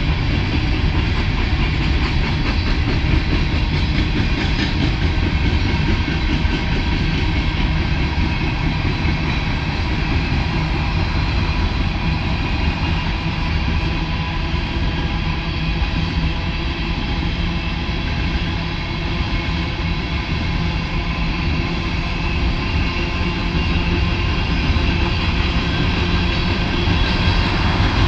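Empty coal hopper cars of a freight train rolling by at a steady pace, a continuous rumble of wheels on rail. Near the end a car approaches and passes on the road.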